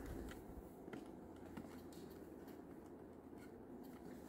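A handful of faint, irregular clicks from the buttons of a LiftMaster garage door opener wall control being pressed, over low room tone.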